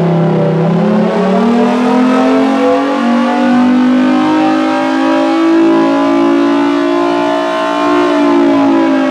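Federal Signal Thunderbolt 1000T mechanical warning siren sounding loud with its chopper and blower both running. Its pitch rises over the first few seconds, holds high, and starts to fall slightly near the end.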